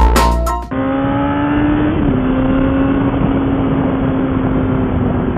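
Electronic intro music that cuts off sharply under a second in, then a sport motorcycle's engine running at a steady pitch at road speed under heavy wind noise, its note stepping down slightly about two seconds in.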